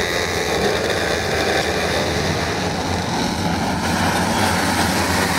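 A pack of racing karts' two-stroke engines running hard together as the field gets away from the green-flag start, a dense steady buzz of many engines at once.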